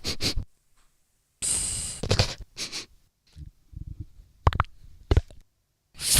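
A person imitating sound effects with the mouth and voice alone: a hiss about a second and a half in, then a string of short clicks, pops and brief low hums.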